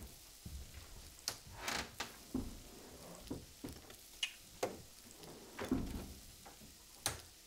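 A string of short knocks and clatters: a wooden pantry drawer pulled open and jars and packets knocked about while rummaging for a spice jar.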